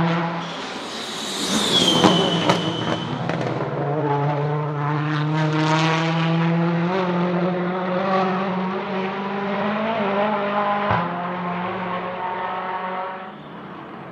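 Volvo S60 Polestar TC1 touring car's turbocharged 1.6-litre four-cylinder engine at racing speed. It passes close in the first few seconds with a high whine falling in pitch, then holds a steady high note with small steps in pitch and a brief break about eleven seconds in, before dropping away near the end.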